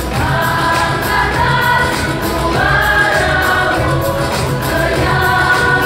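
Church choir singing a Christian song in full voice, with long held notes, over an accompaniment with a steady beat.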